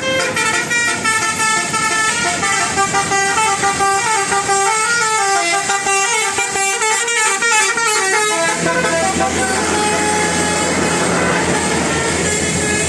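Telolet musical horn on a tour bus playing a quick run of stepping notes, a tune played on a set of electrically switched air-horn trumpets. About eight seconds in the tune stops and a steady engine rumble remains.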